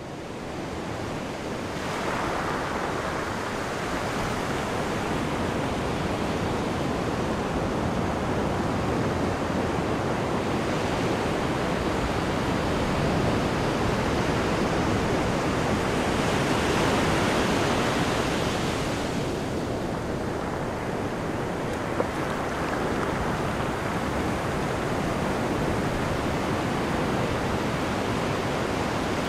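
Ocean surf: a steady wash of breaking waves that fades in over the first couple of seconds and swells to its loudest a little past the middle.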